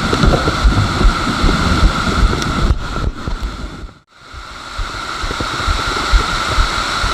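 Mountain bike riding down a flooded road, heard through an action camera: wind buffets the microphone over a steady rush of water, with frequent low knocks from the rough ride. The sound drops out briefly about four seconds in.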